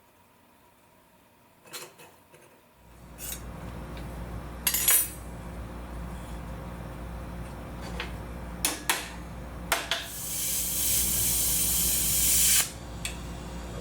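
Hand work on sheet-metal trim: a few sharp metal clinks, then a steady low hum comes on about three seconds in, with a couple of seconds of high hiss near the end.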